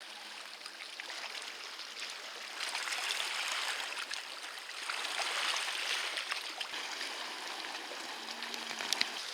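Water washing and rushing, swelling louder about three seconds in and again around five to six seconds in.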